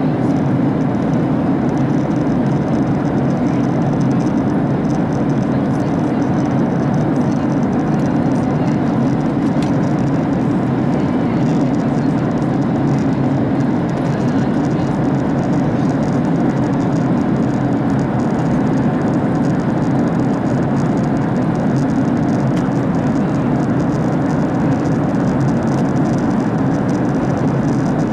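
Steady drone of an airliner in cruise heard inside the passenger cabin: even engine and air noise, deepest in the low-mid range, unchanging throughout.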